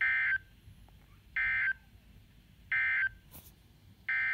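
NOAA Weather Radio Emergency Alert System (SAME) digital data bursts through a handheld radio's speaker: three short, identical warbling bursts about a second apart, then a longer burst starting near the end that opens the header of a second back-to-back flood warning.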